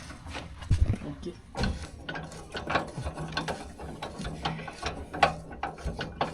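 Irregular mechanical clicks and clanks with a faint steady hum underneath.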